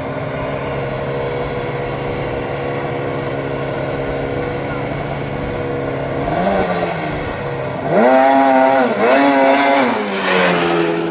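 Racing lawn mower engines running steadily, with a short blip of the throttle, then revved hard twice in quick succession, each time rising in pitch and holding high before dropping back.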